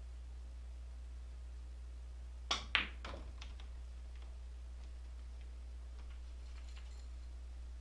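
A pool shot: the cue tip clicks against the cue ball, and a quarter second later the cue ball strikes an object ball with a sharper, louder click, followed by several lighter clicks of balls knocking over the next second. A few faint clicks follow near the end, over a steady low hum.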